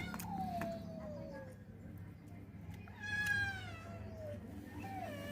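A cat meowing three times in long, drawn-out calls that fall in pitch; the second call, about three seconds in, is the loudest, and the third begins near the end.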